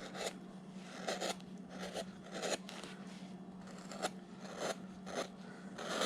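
Carving gouge cutting into wood in about a dozen short, quick strokes, each a brief crisp scrape as a chip is pared away, with a faint steady hum underneath.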